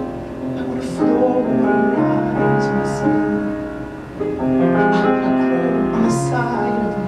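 Instrumental music led by piano, chords changing every half second or so, with no singing.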